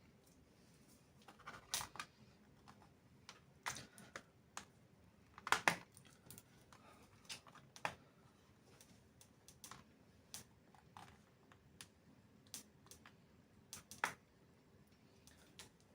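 Irregular light clicks and taps of plastic and small tools as a laptop's bottom cover is handled and worked loose after its screws are out.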